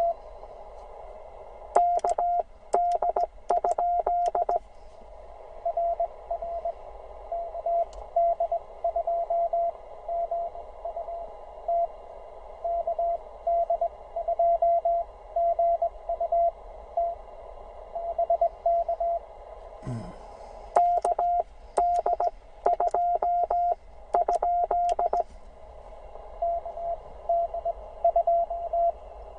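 Morse code (CW) tones from a Penntek TR45L transceiver at one steady pitch over band hiss: a distant station's keying comes through faintly for most of the time. Twice, about two seconds in and again about twenty-one seconds in, louder sidetone bursts come with sharp clicks of the paddle key as the operator sends.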